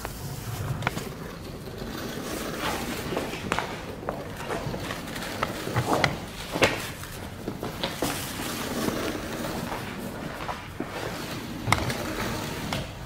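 Irregular slaps, knocks and scuffs of dancers' hands and shoes against a rough concrete wall, over a steady noisy room background; the sharpest knocks come about six seconds in and again near the end.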